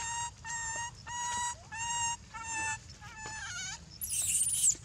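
Baby macaque giving a string of repeated high-pitched coo calls, about two a second, breaking into a loud shrill scream near the end.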